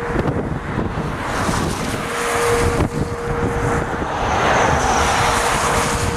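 Strong wind buffeting the microphone in gusts, with a rushing noise that swells about four to five seconds in.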